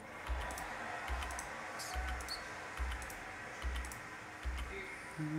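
Computer mouse clicks as a web-page randomizer is re-run, over faint background music with a slow, steady bass beat about once a second.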